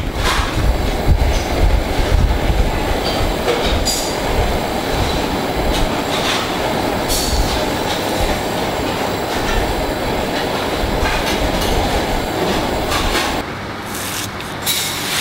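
A pot of fish soup boiling hard on a gas burner: a steady rumbling roar, with a few sharp clicks. The roar drops away about 13 seconds in.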